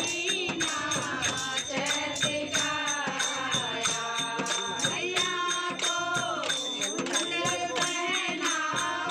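Hindi devotional bhajan to the goddess Durga: a singing voice carrying the melody over a steady percussion beat.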